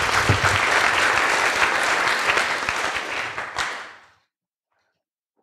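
Audience applauding, a dense patter of many hands clapping that stops about four seconds in.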